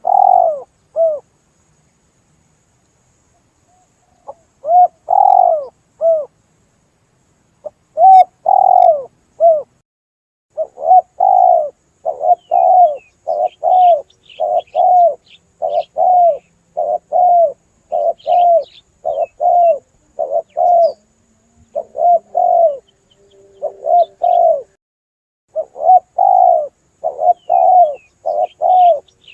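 Spotted dove (tekukur) cooing over and over as a lure call: loud, short arched coos, a few scattered groups at first, then coming steadily about once a second from around ten seconds in. Faint high chirps of smaller birds sound above the coos.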